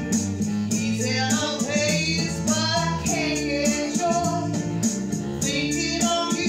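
A woman singing a song into a microphone over instrumental band backing, with steady held chords underneath her voice.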